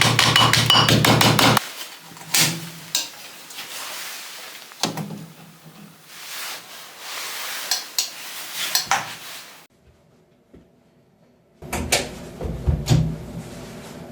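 Workshop tool sounds in short cut-together clips. First comes a loud, fast, even run of strikes, then scattered knocks, taps and clicks. The sound drops out about ten seconds in, and further knocks follow over a low rumble.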